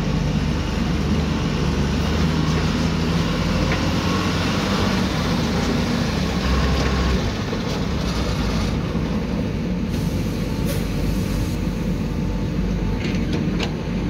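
Diesel engine of a loaded dump truck running as it drives slowly along a dirt track, a steady low rumble that eases a little about seven seconds in.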